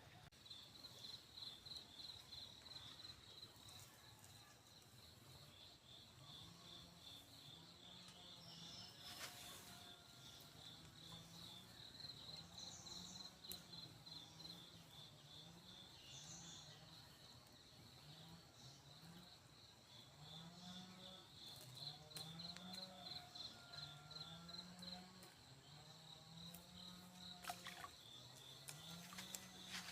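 Faint outdoor ambience: an insect's steady, rapidly pulsed high trill, with low rising-and-falling calls or tones repeating about once a second from about six seconds in.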